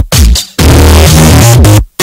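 Loud electronic dance music with a heavy bass line, cutting out abruptly for short moments about three times.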